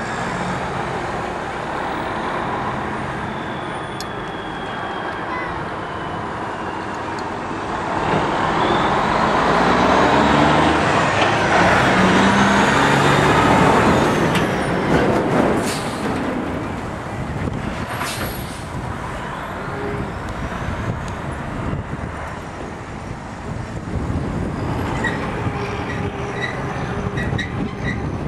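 Road traffic, loudest as a vehicle passes close about 8 to 14 seconds in, with the Union Pacific 844 steam locomotive approaching in the distance.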